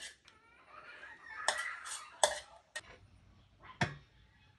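A few sharp clicks and knocks of a serving plate and fork being handled, with short pitched calls in the background between them.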